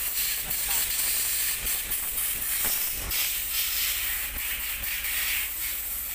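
Compressed-air siphon-feed spray gun hissing steadily as it sprays a cleaning mist onto a metal excavator swivel joint, with a few light knocks.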